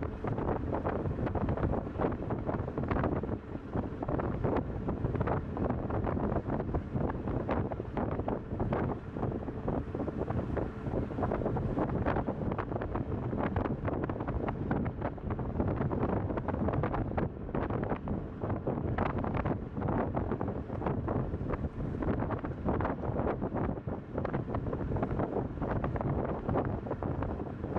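Wind buffeting the microphone in constant, gusty rushes on the deck of a coaster ship under way, with a faint steady engine hum underneath.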